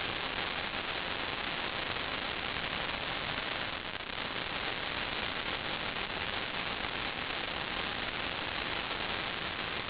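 Steady hiss of static, even and without any tone, with a slight dip about four seconds in.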